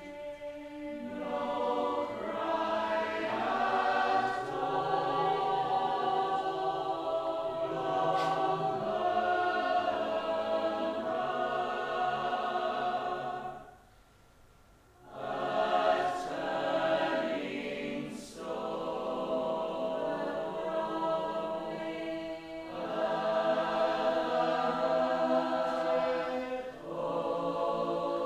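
Several voices singing together in a choir-like blend, holding and shifting sustained notes, with a short break about halfway through before the singing resumes.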